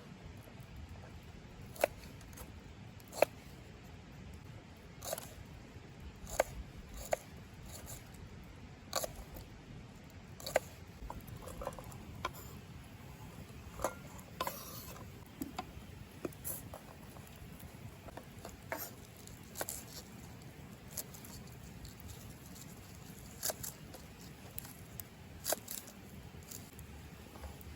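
Scattered sharp clicks and light taps at irregular intervals over a quiet, faintly hissing background.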